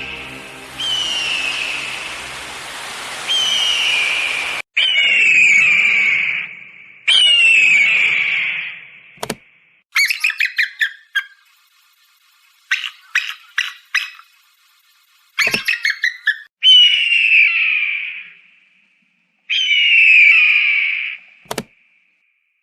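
Eagle calls: repeated loud screams that slide downward in pitch, with two bursts of rapid chattering notes about halfway through. A hiss with a low hum lies under the first few seconds, and sharp clicks mark the joins between recordings.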